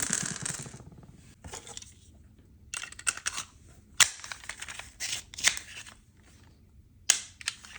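Hard plastic clicking and rattling from handling a 3D-printed Smarties shooter and its reusable 3D-printed ammo: several short bursts of clatter, with a sharp single click about four seconds in and another about seven seconds in.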